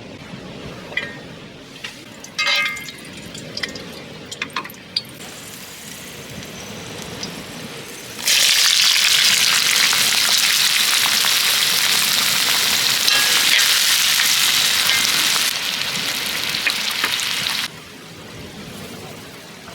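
A few metal clinks and knocks, then food sizzling loudly on a hot multi griddle pan; the sizzle starts suddenly about eight seconds in, eases a little and cuts off suddenly near the end.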